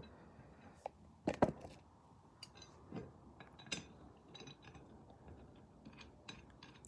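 Cast-iron parts of a bench vise clinking and knocking together as the vise body is lined up on its swivel base: a few scattered metal taps and clicks, the loudest about one and a half seconds in.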